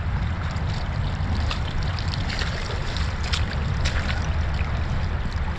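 Shallow creek water rushing steadily, with rubber boots wading and splashing through it in scattered sharp splashes; the current runs fast where a small debris dam has just been broken open.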